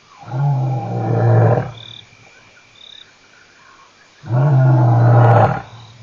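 Male lion roaring out of sight: two long, low calls, each about a second and a half, the second starting about four seconds in.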